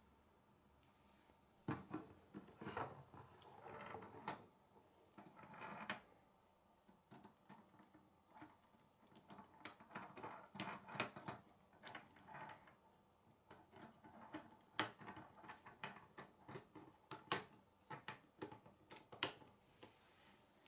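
Plastic K'nex rods and connectors clicking and rattling as they are handled and snapped together, in irregular clusters of sharp clicks that start about two seconds in.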